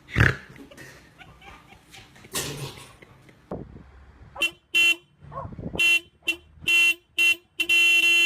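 A horn honked in a string of short toots, about seven, then held in one long blast. Before it come a sharp thump and some scattered knocking.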